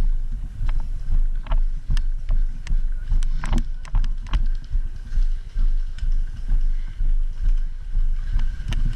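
Heavy low rumble of wind and handling noise on the microphone, pulsing unevenly, with scattered sharp clicks and knocks.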